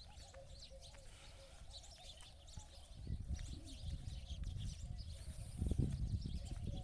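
Birds chirping, with a dove-like cooing. A low rumble grows louder about three seconds in.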